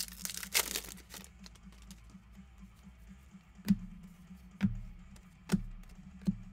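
Foil trading-card pack torn open with a crinkling rip through the first second, then cards being handled with four sharp taps about a second apart.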